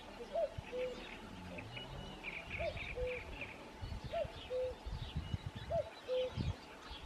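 Birds calling: a low two-note call, a higher note followed by a lower one, repeated four times about a second and a half apart, with higher chirps from small birds over it. Some low rumbling comes in during the second half.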